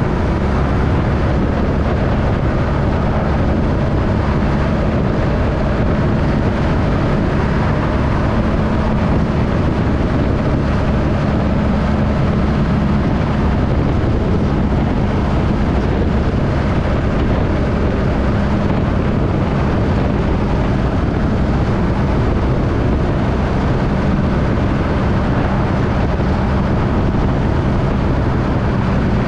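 Motorcycle engine running at a steady cruise, its pitch holding fairly even, under constant wind and road noise.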